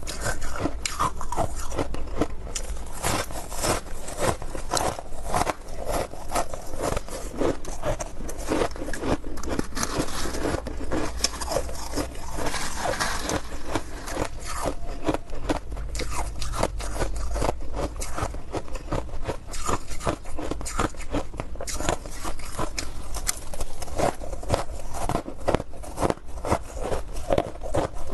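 Close-up biting and crunching of hard ice: a dense, irregular run of sharp cracks and crunches as ice is chewed.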